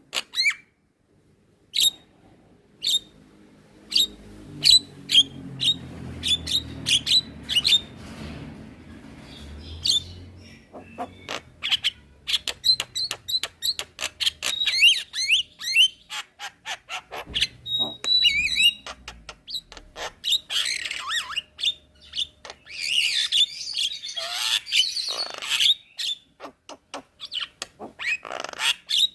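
Javan myna (jalak kebo) singing: a run of sharp clicks and short whistled notes, then harsh, rasping squawks a little past the middle, and clicks again near the end.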